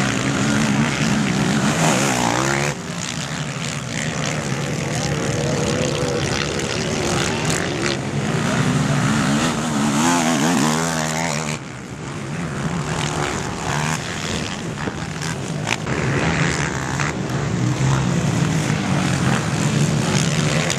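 Racing quad ATV engines revving, rising and falling in pitch as the riders open and close the throttle, with several machines heard at once. The sound breaks off abruptly twice, a few seconds in and about midway.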